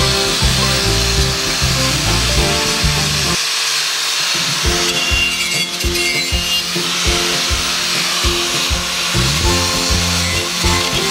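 Background music over an angle grinder grinding a metal outboard part, its continuous high hiss running under the music.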